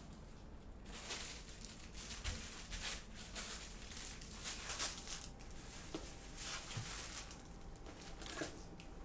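Plastic bags crinkling and rustling as groceries are taken out of a shopping bag and set on a counter, with a few soft knocks in the second half.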